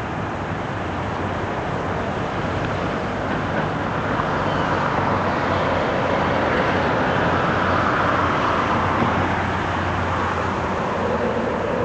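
Street traffic noise, growing louder towards the middle and easing off near the end, like a vehicle going past.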